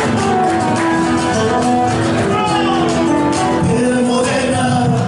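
Argentine folk music played live: held instrumental notes over a steady percussive beat.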